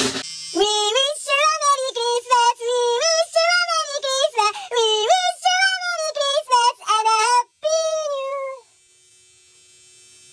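A very high-pitched voice singing in short, wavering phrases, breaking off about nine seconds in and leaving only a faint steady hum.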